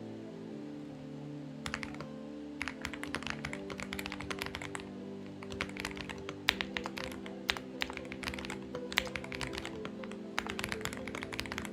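Typing on a Xinmeng X98 mechanical keyboard: rapid keystroke clicks in irregular bursts with short pauses, starting a couple of seconds in, one key landing harder about halfway through. Soft background music plays underneath.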